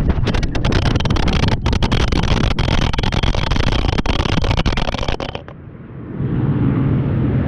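A GoPro action camera tumbling and scraping along asphalt at speed after falling off a motorcycle: a loud, dense crackle of rapid clicks and knocks. It stops suddenly about five seconds in as the camera comes to rest, and after a brief lull a low steady rumble follows.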